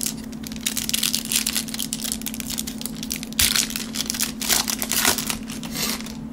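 Clear plastic cellophane wrapper of a Panini Prizm basketball card cello pack crinkling and tearing as it is ripped open by hand, in irregular crackly bursts, loudest about three and a half and five seconds in.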